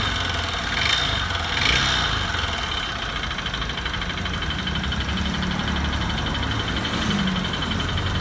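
Honda Bros 150 air-cooled single-cylinder four-stroke engine idling with a rapid mechanical knocking, which the owner traces to a scored piston skirt and cylinder with heavy carbon build-up.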